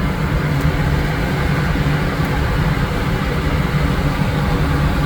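Gas furnace running with its blower fan on, a steady loud whooshing hum of the blower motor and air movement; the furnace has finished its ignition sequence and is heating normally instead of short-cycling.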